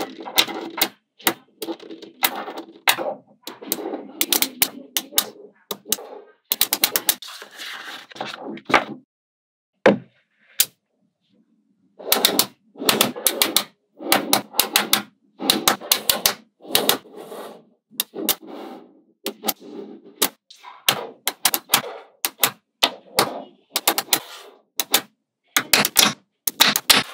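Small neodymium magnetic balls clicking and clacking as strips of them are snapped together and pressed into place. Rapid clusters of sharp clicks with a light rattle between them, pausing for about two seconds near the middle.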